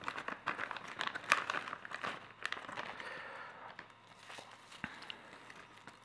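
Clear plastic zip bag crinkling and crackling in the hands as a pad is pulled out of it: irregular crackles, busiest in the first three seconds, then thinning out.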